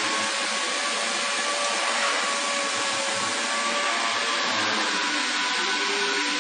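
Linear auto tool change CNC router running: a steady whine over a loud, even hiss.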